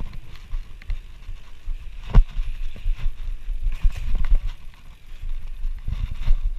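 Fat bike riding down a sand dune, heard from a GoPro on the rider: an uneven low rumble of wind and riding on the microphone, with scattered rattles and knocks from the bike and one sharp knock about two seconds in.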